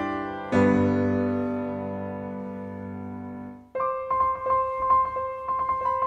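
Background piano music. A chord struck about half a second in rings and slowly fades, then breaks off, and a new passage of steady repeated notes starts just before the four-second mark.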